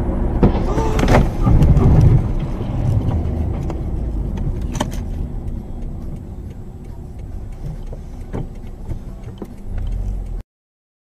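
A car's road and engine rumble heard from inside the cabin, with sharp knocks and clatters; the loudest stretch comes about one to two seconds in. The sound cuts off suddenly near the end.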